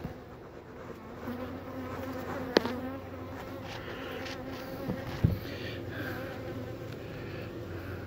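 Honey bees buzzing in a steady hum over an open hive box, with two sharp knocks about two and a half and five seconds in.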